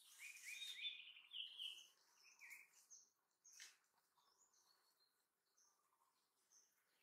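Faint birdsong: a quick run of short chirps in the first few seconds, then scattered softer, higher notes, with a single sharp click a little past the middle.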